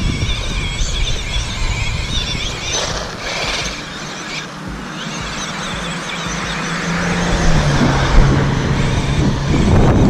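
Electric drive motor and gears of a 1/12-scale 2WD RC truck whining, the pitch wavering up and down with the throttle, as it drives and slides over loose dirt.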